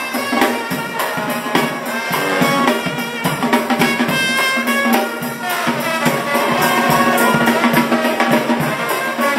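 Street brass band playing an upbeat tune: sousaphone, trumpets and trombone over a steady drum beat.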